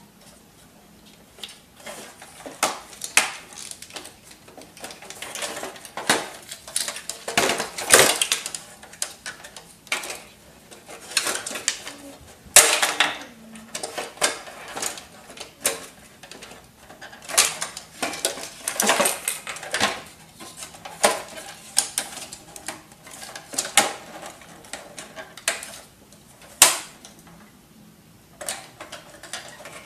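Plastic casing and parts of an HP F2410 all-in-one printer clicking, clattering and knocking irregularly as it is taken apart by hand.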